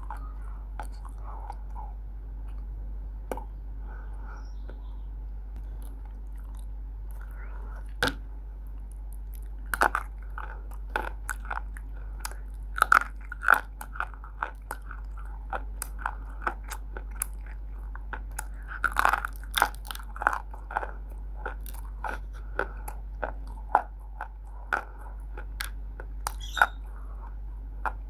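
Crunching bites and chewing of roasted multani mitti (fuller's earth clay), close to the microphone. A few separate crunches come early, then frequent sharp crunches from about ten seconds in, over a steady low hum.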